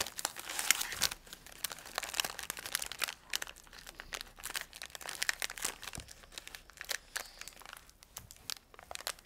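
Plastic wrapper of an Emco chocolate muesli bar crinkling and crackling in a child's hands as he works it open: a fast, irregular run of small crackles that thins out after three or four seconds into scattered ones.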